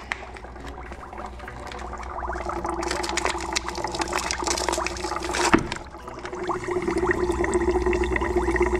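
Water bubbling and fizzing in a bucket as an odor-removal puck dissolves, with an air bubbler running in it: dense crackling of bubbles over a steady low hum, growing louder from about two seconds in. There is one sharp, louder burst just past halfway.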